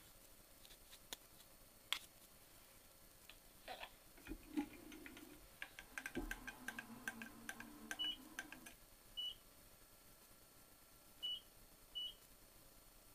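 Faint clicks and rattling, then four short electronic beeps from about eight seconds in, from keypresses on the mill's power-feed or readout control being set up.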